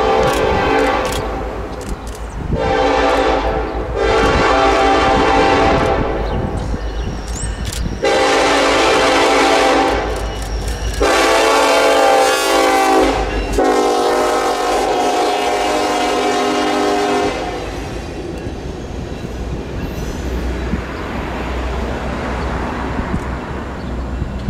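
Norfolk Southern SD70ACe diesel locomotive's air horn sounding a series of six blasts as it approaches and passes. The last and longest blast is lower in pitch as the locomotive goes by and ends about 17 seconds in. Under and after the horn comes the low rumble of the locomotive and the wheel clatter of the passing train.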